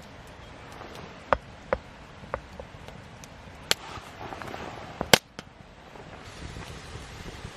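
Wood campfire burning, with several sharp, irregular pops from the burning wood over a low steady crackle; the loudest pop comes about five seconds in.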